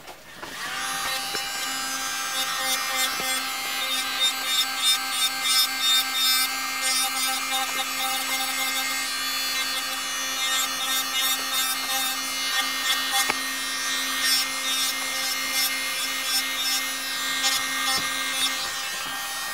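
Electric nail drill running steadily, its motor whining on one even pitch from about half a second in, while the spinning bit grinds down cured white gel with a scratchy noise that swells and fades with each pass. The drill is levelling the gel and lowering the upturned tip of the nail.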